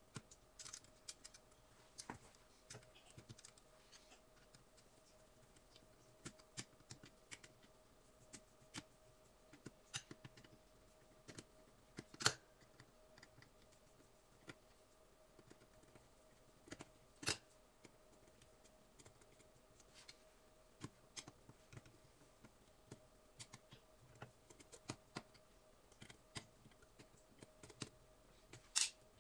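Faint, scattered clicks and taps of small metal parts as a power cable's metal clamp is fitted into a dishwasher's sheet-metal junction box and worked with a screwdriver, with sharper clicks about 12 and 17 seconds in. A faint steady hum runs underneath.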